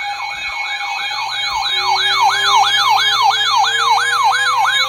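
Weather radio alarm sounding for a flash flood warning: an electronic siren tone sweeping up and down fast, about three to four times a second, over steady alert tones, with another tone entering about two seconds in and rising slowly.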